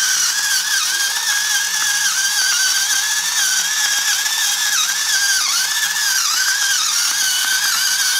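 Electric salt mill grinding coarse salt: a small motor whine over a grinding hiss, wavering and dipping briefly again and again, then cutting off suddenly at the end.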